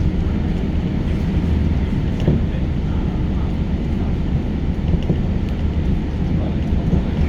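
Inside a JR Special Rapid commuter train running at speed: a steady low rumble of wheels and running gear, with a few faint clicks.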